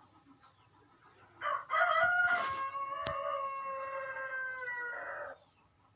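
Rooster crowing once. The crow lasts about four seconds and ends in a long held note that slowly falls in pitch. A sharp click comes partway through.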